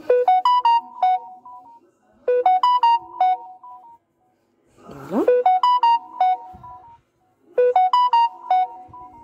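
A short, bright electronic melody of quick notes, like a ringtone, repeating four times, about every two and a half seconds.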